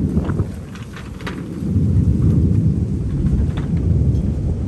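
Rolling thunder rumbling low and loud, easing about a second in, then swelling again and rolling on, with scattered light ticks over it.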